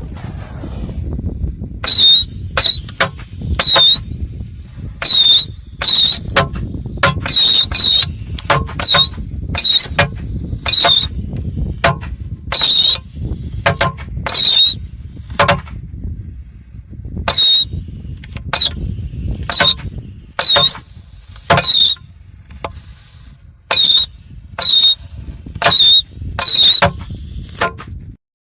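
Small whistling firework giving off a string of short, high shrieking whistles, about one a second and irregularly spaced, over a steady low rumble; the sound cuts off suddenly near the end.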